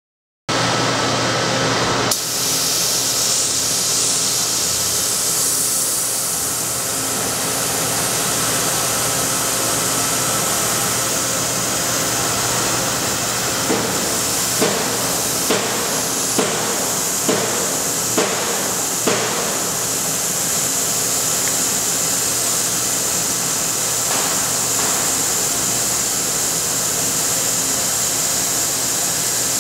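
PWR-series oil mist collector running, its fan drawing a dense water mist through the transparent drum: a steady rushing hiss over a faint motor hum, starting abruptly. Between about 13 and 19 seconds in, a series of about seven light knocks, roughly one a second.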